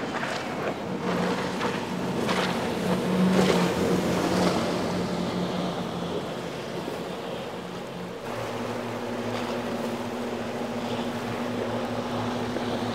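Twin Mercury 400 outboards on a Ranieri Cayman 38.0 running at speed, a steady drone with several sharp splashy hits as the hull slams through the chop in the first few seconds. About eight seconds in it switches to the lower, steadier drone of a Freeman center console's quad Mercury 400 outboards.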